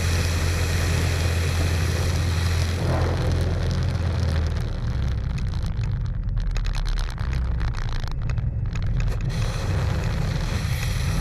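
Thorp T-18 light aircraft in flight, heard from a camera on its tail, as it pitches up vertical and stalls into a tailslide. A steady low engine drone shifts about halfway through, while the airflow hiss fades away in the middle and builds again near the end as the nose drops.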